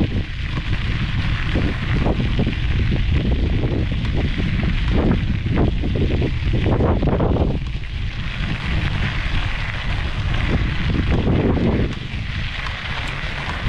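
Wind buffeting the microphone: a heavy, continuous low rumble with gusts that swell every few seconds, over a steady hiss.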